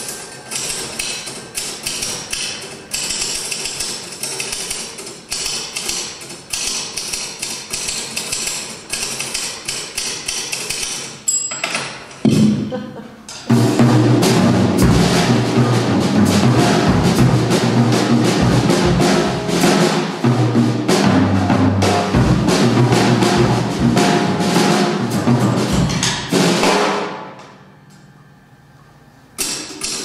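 Typewriter keys clacking in quick rhythmic runs. About twelve seconds in, they give way to a full drum kit groove with kick, snare and cymbals that is loud and dense for about a dozen seconds. The kit dies away into a brief lull before the typewriter keys start clacking again near the end.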